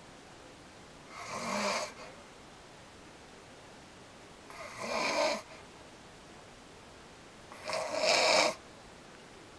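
A man snoring in his sleep: three snores, each about a second long, roughly three and a half seconds apart, the last the loudest.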